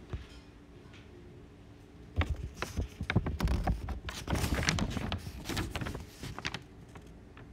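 A flurry of knocks, clicks and rustling that starts about two seconds in and lasts about four seconds.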